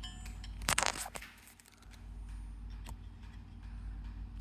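A removed car center console latch being handled: a quick cluster of sharp plastic clicks and rattles about a second in, then a single faint tick near three seconds.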